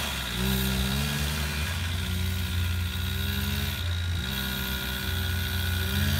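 Arctic Cat Kitty Cat youth snowmobile engine running as it drives through snow, its pitch rising shortly after the start, dipping briefly about four seconds in and climbing again with the throttle.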